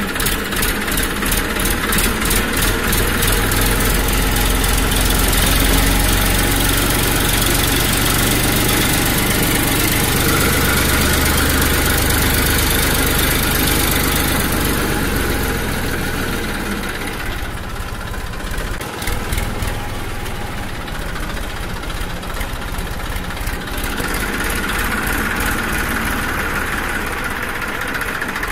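Small battery-powered electric motors of a homemade cardboard hydraulic backhoe model, running with a steady buzzing whir and a low hum. The higher part of the sound drops away a little past the middle and returns near the end.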